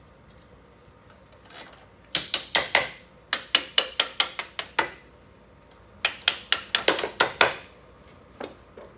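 Hammer tapping bolts through the holes of a chair leg and seat: three runs of quick, sharp taps, about five a second, with a slight ring.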